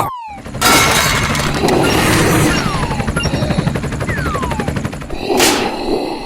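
Cartoon sound effects over music: a sudden crash, then a fast rattling clatter with two falling whistle tones, and another short crash near the end.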